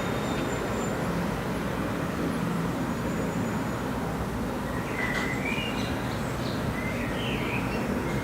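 Freight train rolling past, a steady noise of wagons running on the rails.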